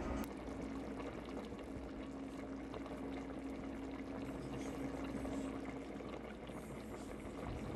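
Pot of pig feet and watercress in broth boiling, a steady bubbling with many small pops, over a steady low hum.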